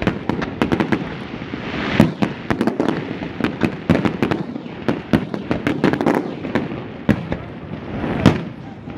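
Fireworks display: aerial shells bursting in rapid succession, a dense run of sharp bangs and crackles overlapping one another, with the loudest bangs about two seconds in and near the end.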